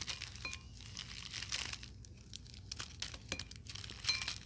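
Plastic candy wrappers crinkling as a hand rummages through a glass bowl of individually wrapped hard candies, in irregular rustling crackles.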